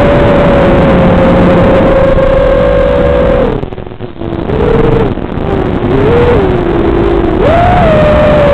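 FPV quadcopter's brushless motors and propellers whining steadily with rushing air. About halfway through the throttle is cut, so the whine drops in pitch and fades as the quad dives, with two short throttle blips, then it jumps back up in pitch as power comes back on near the end.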